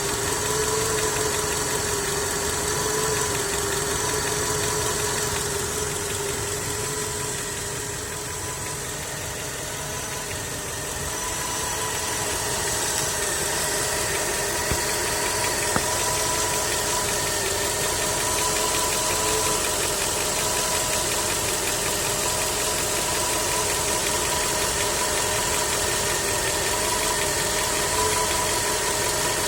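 Skoda 1.6 BSF eight-valve four-cylinder petrol engine running at a steady speed with a knock from inside the engine, the fault being shown.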